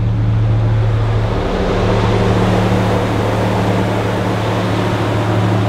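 GMC Sierra pickup truck's engine running with a steady low hum as the truck moves slowly at low speed. The engine noise grows fuller from about a second and a half in.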